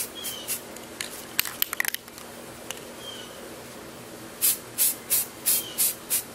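Aerosol spray-paint can fired in short puffs of hiss, about three a second: a light texturing coat rather than a heavy one. The puffs pause for a few seconds in the middle, with a few light clicks about a second in, then resume near the end.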